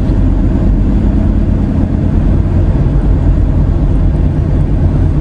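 Steady low rumble of a running vehicle, with no change in pitch or level.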